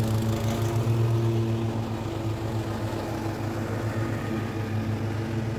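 Toro petrol walk-behind rotary mower running steadily while it cuts grass, a constant engine hum that eases a little after about two seconds.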